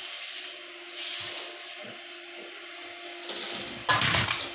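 Steady machine hum, with a couple of brief swishes early on, then near the end a loud clatter of metal on metal as an aluminium cooking pot and a round steel tray are handled on a stainless-steel counter.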